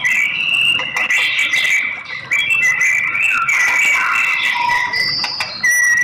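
White-rumped shama singing: a fast, varied run of clear whistles, slurs and short trills. Near the end a long, level whistle takes over.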